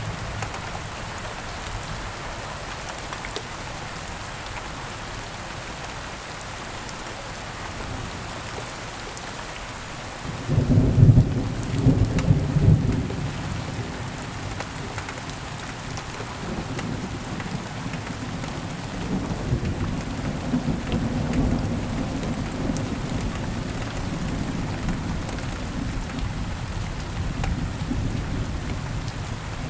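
Steady rain falling, with a clap of thunder about a third of the way in that breaks sharply and then rolls on as a low rumble under the rain for the rest of the stretch.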